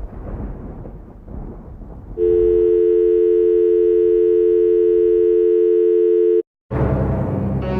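A low rumbling noise fades out, then a telephone dial tone sounds: two steady pitches held together for about four seconds, then cut off abruptly. After a brief gap, a noisy swell begins as music starts near the end.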